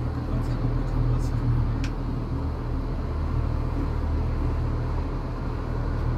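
Steady low rumble of a road vehicle, with a brief faint high chirp about two seconds in.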